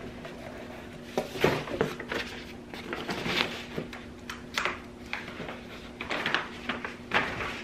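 Paper and cardboard rustling and crinkling as large folded paper sheets are pulled out of a cardboard shipping box and unfolded, in irregular bursts of scrapes and crackles.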